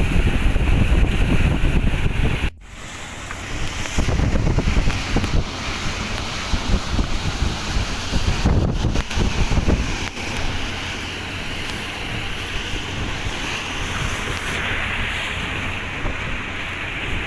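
Wind buffeting the microphone over water rushing past the hull of a small boat underway, gusty and rumbling at first and steadier in the later part. The sound cuts out briefly about two and a half seconds in.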